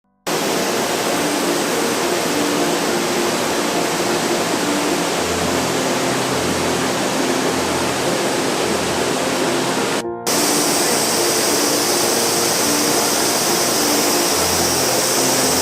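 Steady rush of a waterfall, with background music of held notes and a slow repeating bass laid over it. A brief drop-out about ten seconds in, after which the water sounds brighter and hissier.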